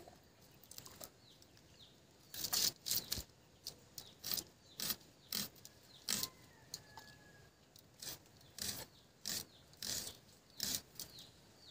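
A knife blade peeling and slicing small red onions by hand: short, crisp cutting and scraping strokes about twice a second, starting about two seconds in.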